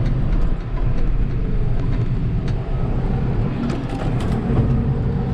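Challenger tractor with a CVT transmission running steadily under way, heard from inside the cab with a low engine drone, while it pulls a forage wagon. A few light clicks or rattles come about four seconds in.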